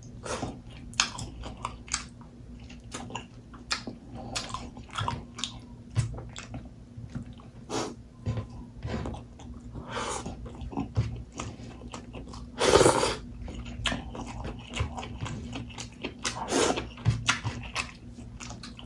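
Close-miked eating sounds of a person chewing and biting pieces of pork and rice taken by hand, with small crunches coming irregularly and one louder, longer noise about two-thirds of the way through. A low steady hum runs underneath.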